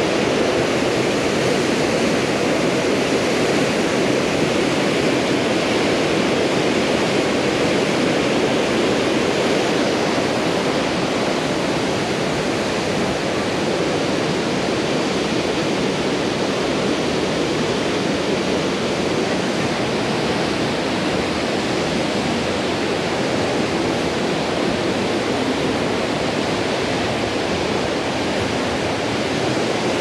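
Steady rush of a waterfall and a fast gorge stream, with the water running high; it eases slightly about ten seconds in.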